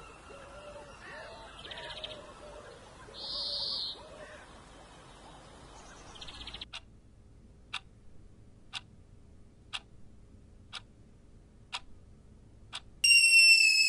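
Birds calling over a steady background for several seconds, which stops abruptly. Then a quartz wall clock ticking once a second, seven ticks. Near the end a stovetop kettle starts to whistle loudly, with several shrill tones falling slightly in pitch.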